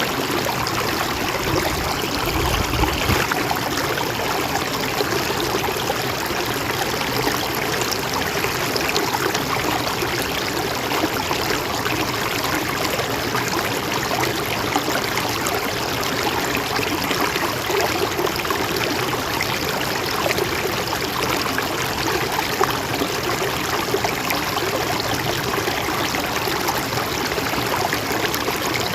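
Mountain stream flowing steadily, an even rushing and trickling of water with no let-up. A brief low rumble sounds about two to three seconds in.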